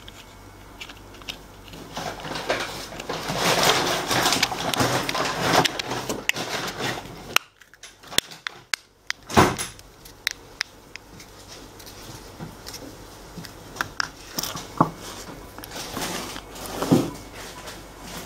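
Plastic scraping, rubbing and clicking as a BMW key fob is pressed into its replacement case shell and snapped shut, with one sharp click about halfway through and a few lighter clicks after it.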